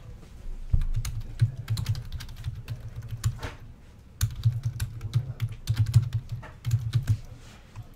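Typing on a computer keyboard: rapid runs of key clicks with low thuds, a brief lull about halfway through.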